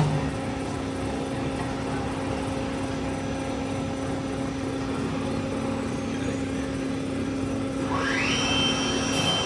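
Wood-Mizer industrial band sawmill running with a steady mechanical hum that starts abruptly. About eight seconds in, a whine rises in pitch and then holds steady.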